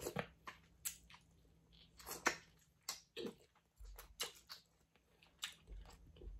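Chewing and mouth smacking while eating a seafood boil of crawfish and mussels, with irregular sharp smacks about two a second.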